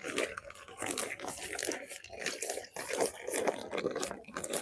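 Plastic wash bag crinkling and rustling in quick, irregular bursts as a hand kneads the wet clothes inside it.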